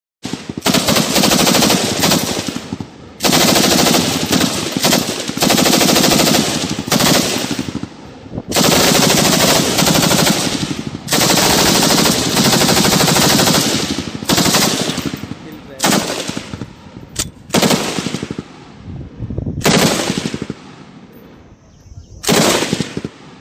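Belt-fed light machine guns firing fully automatic: several long bursts of two to three seconds each, then shorter bursts about every two seconds toward the end.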